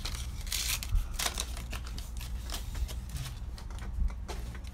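Baseball cards being handled and flipped through by hand: irregular soft scrapes and light ticks of card stock sliding against card stock, with a couple of soft knocks.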